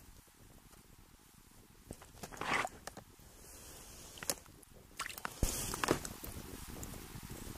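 Wet squelches and splashes of boots and a hand in slush and meltwater on sinking ice. They come in a few short bursts, about two and a half seconds in, near four seconds, and a cluster around five and a half seconds in.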